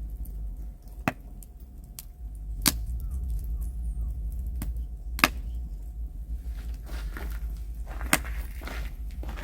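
Four sharp, single knocks a few seconds apart, with faint chirps between them.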